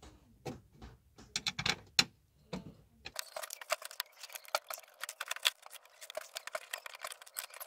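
Light metallic clicks and taps of nuts being fitted by hand onto the accelerator pedal's mounting studs: scattered knocks for the first three seconds, then a fast run of small ticks.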